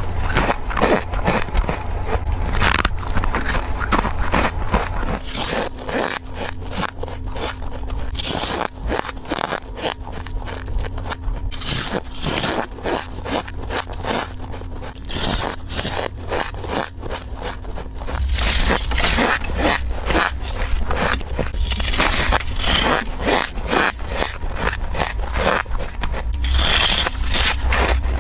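Freezer frost being bitten and chewed in quick succession close to the microphone: a run of crisp, squeaky crunches, several a second, without a break.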